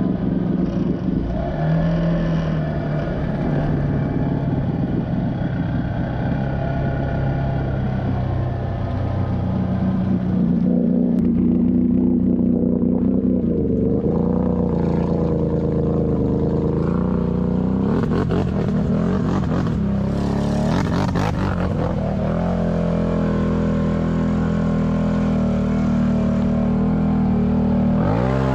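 Snorkeled ATV engines running under load while wading through deep pond water, the revs dropping and climbing again several times as the throttle is worked.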